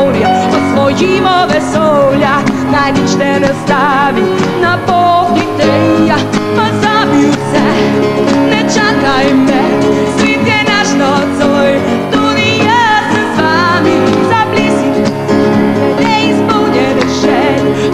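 Live pop-rock band music with a steady drum beat and a woman singing lead.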